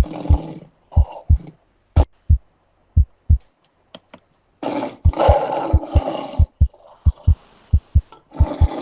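A sleeping patient with obstructive sleep apnea snoring over a steady heartbeat. The heart thumps in lub-dub pairs about once a second. The snoring breaks off for about three seconds, leaving only the heartbeat, then comes back with loud snores about five seconds in, while the heartbeats come faster.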